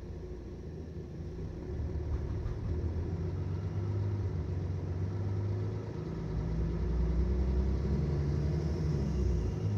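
Mercedes-Benz Citaro O530 city bus engine running under way, heard from inside the passenger cabin as a low rumble. It gets louder in two steps, about two seconds in and again about six seconds in, as the engine note shifts.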